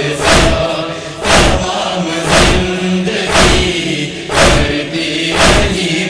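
Matam, hands beating on chests in a steady beat about once a second, over a chorus of voices holding a drawn-out chant note: the backing of a Shia noha between sung lines.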